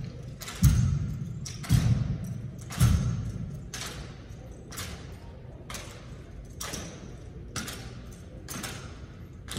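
Drill team's rifles slapped and struck in unison during a manual-of-arms routine, one sharp knock about every second and echoing in the large hall. The first three hits carry a heavy low thud, and the later ones are lighter, higher knocks.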